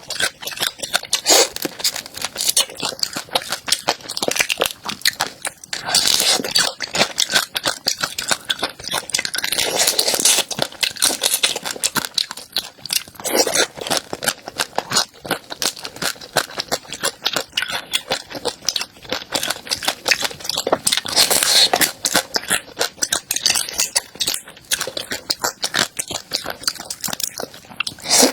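Close-up chewing and crunching of a crisp food: a fast, continuous run of crackles and clicks, with louder crunchy bites every few seconds.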